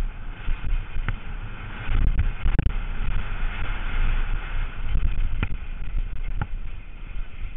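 Downhill mountain bike descending at speed over a loose, sandy trail: wind rushing over the on-bike camera's microphone and a steady rumble and rattle from the tyres and bike, with several sharp clacks as it takes hits.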